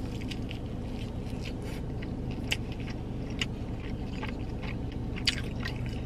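Biting and chewing fried chicken close to the microphone: small crunching clicks scattered through, a few sharper ones, over a steady low hum.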